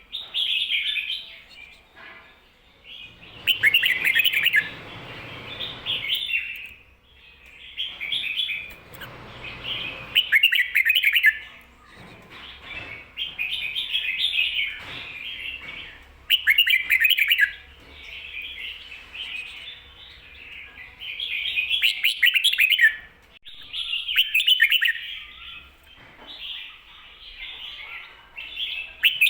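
Red-whiskered bulbul singing a run of short, loud, warbling phrases, one after another about every two seconds. This is the doubled 'ko-ta-ra' song that bulbul keepers call 'beun'.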